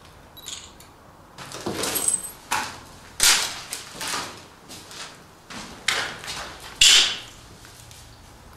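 Footsteps over a floor strewn with broken plaster, wood scraps and rubble: a run of irregular steps and scrapes, the loudest about three seconds in and again near seven seconds.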